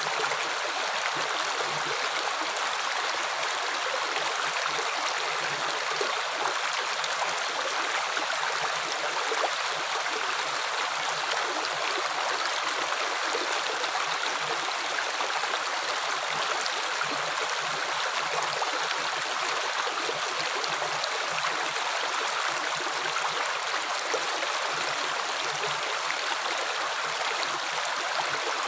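Flowing water running steadily like a stream, an even rushing with no splashes or drips standing out.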